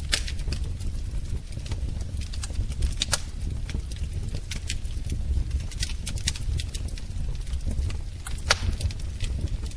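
Wood fire burning in a fireplace: a steady low rumble of flames with irregular sharp crackles and pops, the loudest snaps about three seconds in and again near the end.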